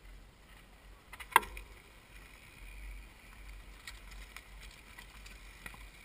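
Mountain bikes rolling past on a loose gravel and stone track, tyres crunching over the stones, with one sharp click about a second and a half in and a few fainter clicks later.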